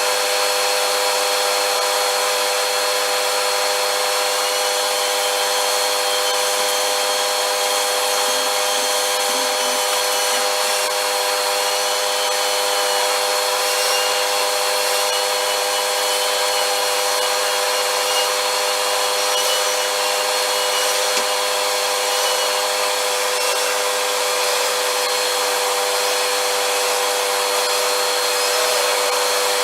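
Vacuum cleaner running steadily: a constant motor whine over rushing air, with faint wavering high whistles.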